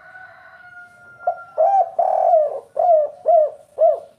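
Spotted dove (derkuku) cooing: a faint held note, then from about a second in a loud run of arching coo notes, one of them longer, ending in three short, evenly spaced 'kuk' notes, the call type hobbyists call kuk 3.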